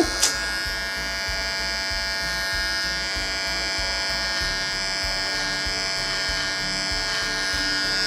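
Small electric hair clipper running with a steady, even buzz as it is held to a baby's head to trim his hair.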